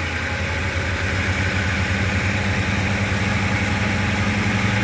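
2008 Ford Expedition's 5.4-litre V8 idling steadily, just after starting. It runs only while the loose feed cable to the interior fuse box is held against the battery's positive terminal.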